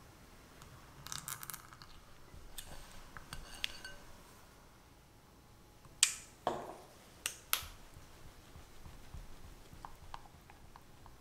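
Small clicks and glassy clinks of a glass mixing bowl and small containers being handled while gelatin and food colouring are added to lemon glaze, with the loudest sharp click about six seconds in, a short ringing note just after it, and two more clicks.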